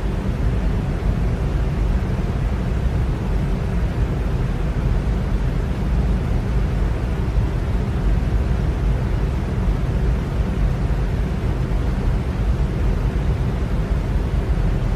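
Electric fan running steadily: a constant, even rush of air with a deep low hum and no changes.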